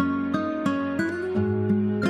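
Background music: gentle plucked acoustic guitar playing a slow, even run of notes.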